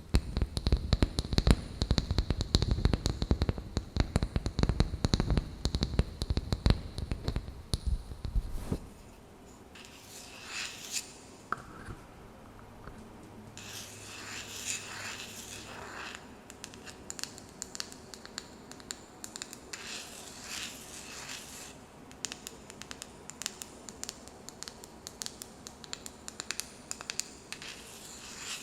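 Fingers tapping fast on a wooden lid for about nine seconds, then softer scratching and tracing across the wood in short strokes.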